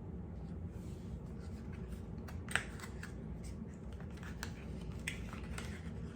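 A small product box being handled and opened by hand: scattered light clicks, scrapes and rustles, with one louder snap about two and a half seconds in.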